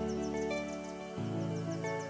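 Calm instrumental background music with held chords that change a little over a second in, over a quick, even, high ticking.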